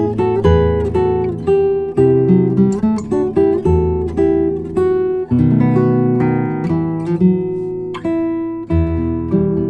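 Background music: acoustic guitar plucked and strummed in a steady rhythm, with a low bass line.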